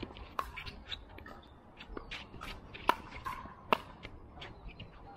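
Sharp pocks of pickleball paddles hitting the plastic ball in a rally. The loudest hits come right at the start, about three seconds in and again just under a second later, with fainter ticks in between.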